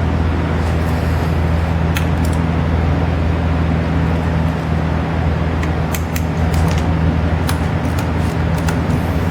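A steady low mechanical hum throughout, with a few scattered light metallic clicks and clinks from the pit bike's front axle, spacer and hardware being handled and lined up.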